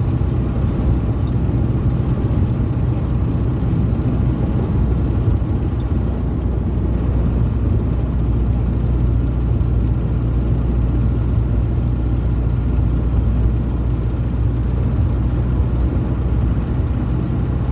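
Ford Cargo 712 light truck on the move: its diesel engine drones steadily under tyre and road noise, holding an even cruising speed.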